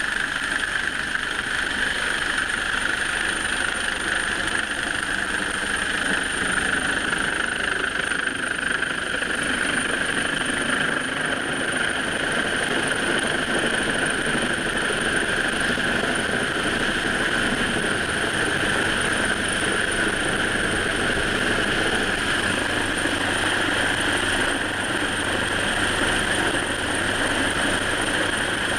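Coastguard search-and-rescue helicopter hovering close overhead during a winching, its rotor and turbine noise loud and steady with a thin high whine running through it.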